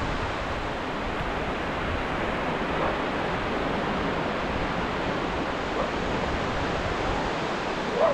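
Indian Ocean surf: a steady, unbroken wash of breaking waves.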